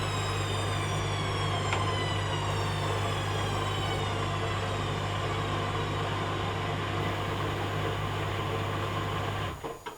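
Hoover Dynamic Next washing machine running: a steady low hum under a whine that slowly falls in pitch. Both stop suddenly just before the end.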